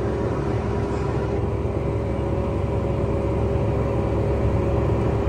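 Vehicle engine running steadily: a low drone with a constant hum, no change in speed.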